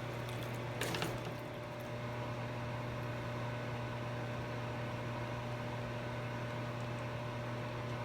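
Steady low electrical hum under a faint hiss, with a brief clatter about a second in.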